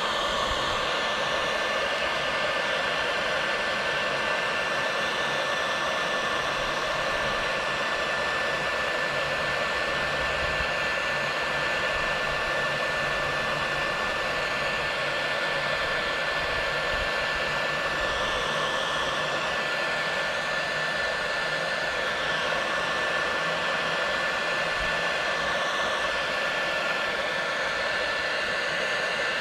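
Electric heat gun running steadily, its fan blowing hot air onto heat-shrink tubing over crimped wire terminals, with a thin steady high tone over the rush of air.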